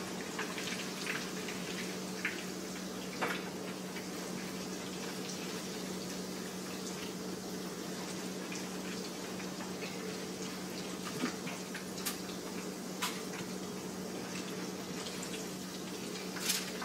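Breaded chicken pieces frying in oil in a skillet: a steady sizzle, with a few light clicks of a utensil against the pan.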